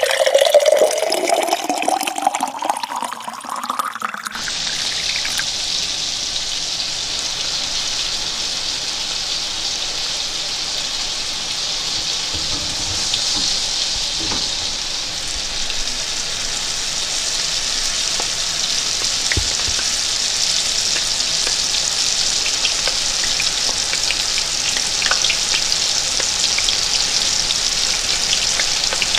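Liquid pouring into a cooking pot, its pitch rising as the pot fills, for the first few seconds. About four seconds in, it switches suddenly to a steady sizzle of food frying in hot oil, which continues.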